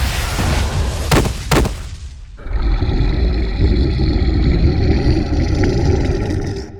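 Loud sound effects: a heavy rumbling noise with two sharp bangs a second or so in, then, after a brief drop, a steady rumble that fades near the end.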